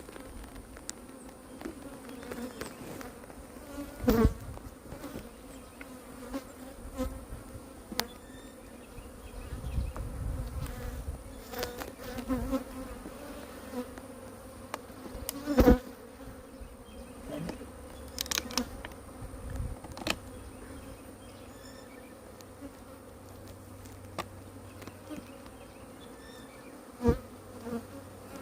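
Honeybees buzzing in a steady hum around an open hive being inspected, with a few sharp knocks, the loudest about 4, 16 and 27 seconds in.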